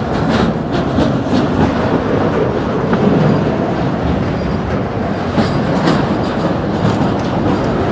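Autorack freight cars rolling slowly past at close range: steel wheels rumbling on the rails, with irregular sharp clicks and clanks.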